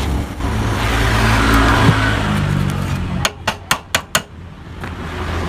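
An engine running steadily, then about three seconds in, five quick sharp knocks about a fifth of a second apart, after which the engine sound is fainter.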